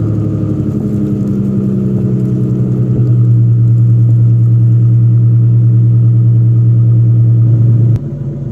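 Exhaust of a New Edge Ford Mustang's 3.8-litre V6 running at a steady speed, a little louder from about three seconds in, then dropping off suddenly near the end.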